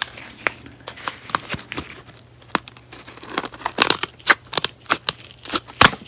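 A Zippo lighter's retail packaging being cut and pulled open by gloved hands: crinkling and crackling with sharp snips and clicks, sparse at first and much busier in the second half.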